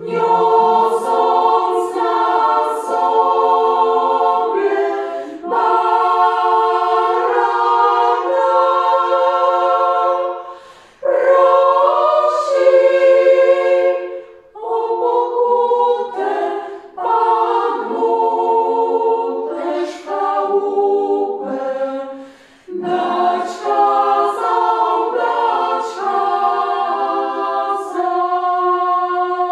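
Women's choir singing a cappella in several voice parts. The song moves in phrases of a few seconds with short breaths between them, and ends on a long held chord.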